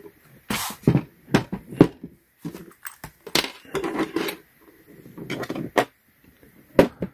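Small metal lock picks and tension wrenches clicking and clattering as they are handled, an irregular string of sharp taps and knocks.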